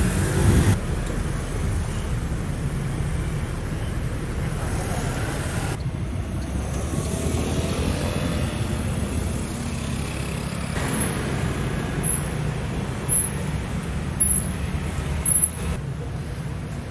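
Street traffic noise: a steady low rumble of passing vehicles, with several short high ticks in the second half.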